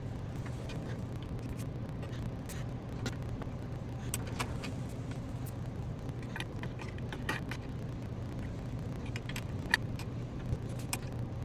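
Scattered small metal clicks and taps as an open-end wrench and the braided air hose's fitting are handled and tightened on an ARB twin air compressor. The sharpest click comes near the end. A steady low hum runs underneath.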